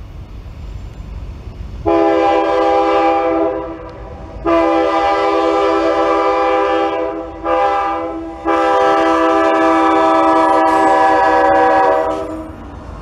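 CSX diesel locomotive's multi-tone air horn sounding the grade-crossing signal: two long blasts, a short one, then a final long one. A low rumble from the approaching coal train runs underneath.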